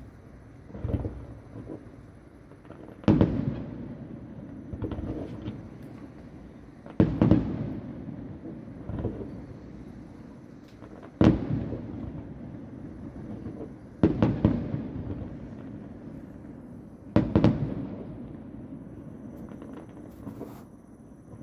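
Fireworks display heard from about a kilometre off: aerial shells bursting every few seconds, sometimes two in quick succession, each bang trailing off in a rolling rumble.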